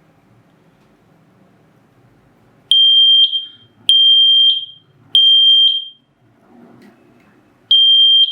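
GST standalone smoke detector's piezo sounder going into alarm after smoke from smouldering jute has reached its sensing chamber. It gives loud, steady, high-pitched beeps in the three-beep pattern, starting a little under three seconds in: three beeps, a pause, then a new group beginning near the end.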